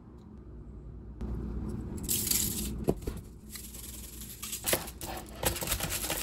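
Aluminium foil on a baking tray crinkling and rustling as cauliflower florets are pushed around on it by hand, starting about a second in, with a few sharp clicks.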